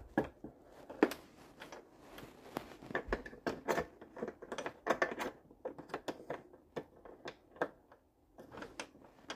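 Irregular clicks, taps and rattles of a hand screwdriver and metal furniture hardware as a desk is being unscrewed and taken apart.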